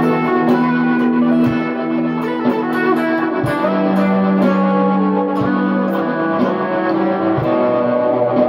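Squier Telecaster electric guitar played clean through ambient reverb and delay pedals (Old Blood Noise Endeavors Dark Star and Procession, Walrus Audio ARP-87): slow, held notes overlap and hang in a wash of reverb. A new lower note comes in about three and a half seconds in.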